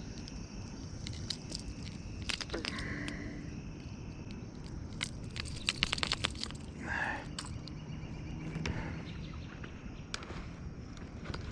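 Rummaging and handling noises while searching through fishing gear: scattered clicks and rustles, with a quick run of clicks about halfway through.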